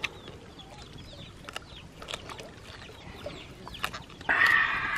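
Chickens clucking in the background, their short calls mixed with scattered sharp clicks. Near the end a louder rough sound lasts about a second.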